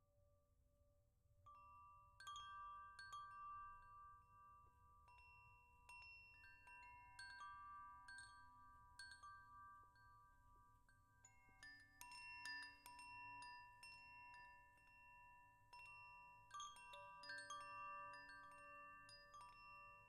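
Bell-like tuned percussion struck gently and unevenly, the notes ringing on and overlapping into a quiet shimmer. It starts almost silent, with only a faint leftover ring, and the strikes begin about a second and a half in.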